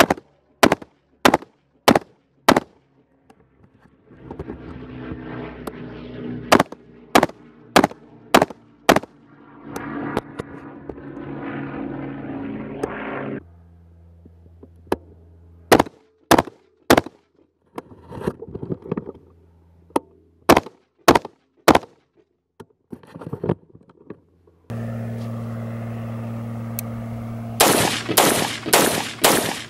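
AR-15 rifle with a Battle Comp muzzle brake fired semi-automatically in strings of single shots, a little under two a second. Near the end a faster string of shots comes close together.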